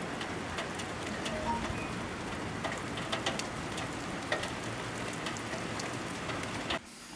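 Steady rain falling outdoors: an even hiss with many scattered sharp drop ticks. It cuts off abruptly just before the end.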